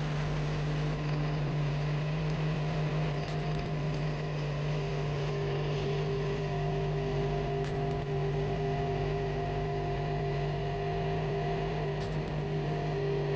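Lavazza capsule coffee machine running with a steady electric hum from its pump. A second, higher tone joins about five seconds in.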